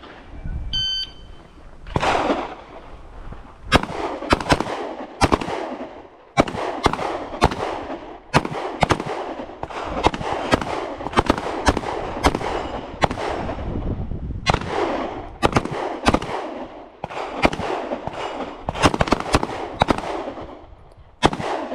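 A shot timer's short electronic start beep, then several handguns fired at an irregular pace by shooters working at their own speed. The sharp cracks often come in quick pairs, overlap from different shooters, and each echoes.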